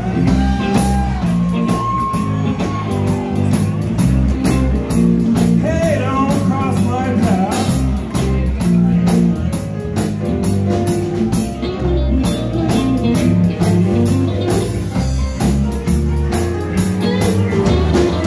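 Live band of drums, bass, electric guitar and keyboard playing a rockabilly groove with a steady beat, with a male singer's vocals over it.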